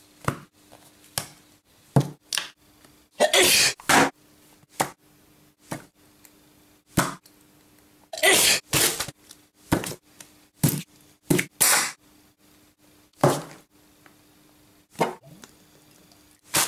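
Short clicks, taps and squirting sounds of burger assembly on a countertop: condiment squeeze bottles squirting onto a bun and food and bottles being set down. Two longer squirts come a few seconds in and about eight seconds in, over a faint steady hum.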